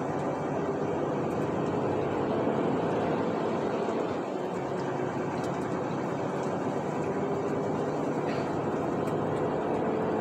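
Steady running noise of a moving road vehicle: a constant engine hum mixed with road noise, heard from inside the vehicle while driving at an even pace.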